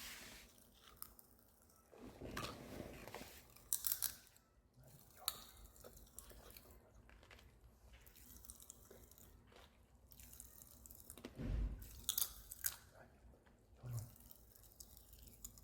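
Faint eating sounds: food being chewed and crunched, with a few sharp clicks and light knocks scattered through.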